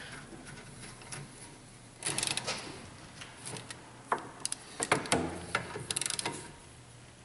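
Metal clicks and rattles of a rear disc brake caliper being swung down into place and its mounting bolts started by hand. The clicks start about two seconds in, and a quick run of rapid ratchet-like ticks comes a little before the end.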